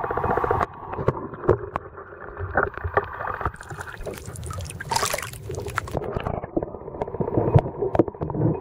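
Seawater sloshing and splashing around a handheld waterproof camera at the sea surface, with scattered knocks from handling. A louder, hissing surge of splashing comes near the middle, as the camera breaks the surface.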